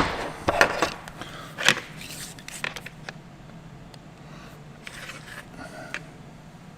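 Hand tools and small electrical parts being handled on a workbench: a string of clicks and scrapes in the first three seconds, then a short rustle about five seconds in.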